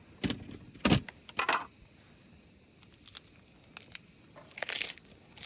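Cookware being handled: three sharp knocks and clatters in the first second and a half, the second the loudest, then a short scraping rustle near the end.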